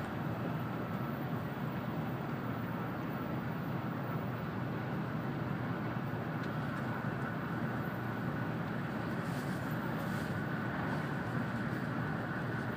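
Running noise of an N700-series Shinkansen heard from inside the passenger cabin: a steady rumble and rush with a faint, steady high whine above it.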